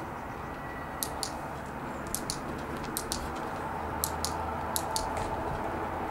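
Skateboard wheels rolling slowly over rough tarmac under a dog, a steady gritty noise that grows a little louder after about three seconds. Five pairs of sharp, quick clicks come about a second apart over it.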